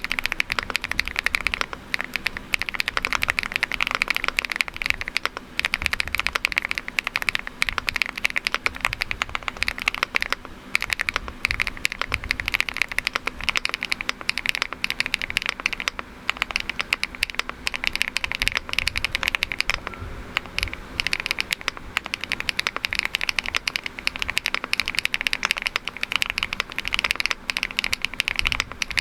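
Fast, continuous typing on a Rainy 75 mechanical keyboard with a PP plate, with keystrokes clacking in quick succession and brief pauses. The first half is HMX Pado V2 switches; about halfway through it changes to GEON x HMX Raptor Extreme switches.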